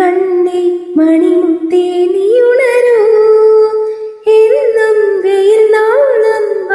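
A woman singing a slow Malayalam song, holding long notes that glide up and down between pitches.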